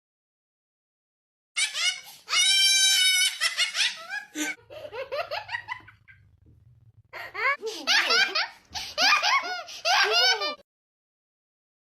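High-pitched, squealing laughter in bursts, starting about a second and a half in. After a quieter stretch it picks up again as a rapid run of laughs that stops short near the end.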